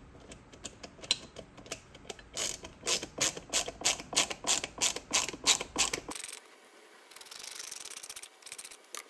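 Hand ratcheting screwdriver clicking in quick strokes, about three a second and getting louder, as it drives small screws through a metal label-holder handle into a wooden drawer front. The clicking stops about six seconds in, and a soft hiss follows.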